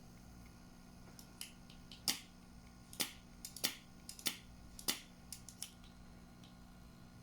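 Spring-loaded solder sucker (desoldering pump) clicking and snapping about six times in quick succession as it is cocked and fired to suck up melted solder, over a steady low hum.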